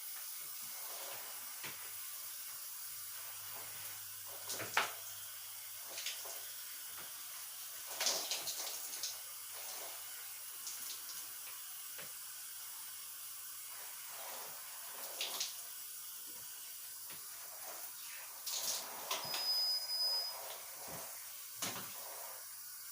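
Steady hiss of a tap running in a bathroom, with scattered knocks and clatter of things being handled while cleaning.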